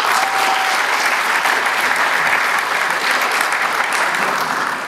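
Audience in a theatre hall applauding steadily, a dense patter of many hands clapping.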